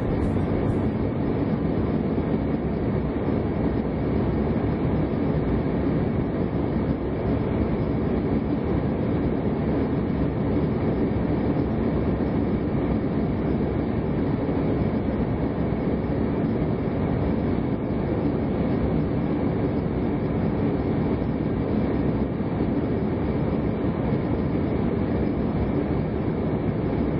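Steady cabin noise inside an Embraer 190 airliner: an even rush of air and engine noise from its two GE CF34 turbofans, with no breaks or distinct events.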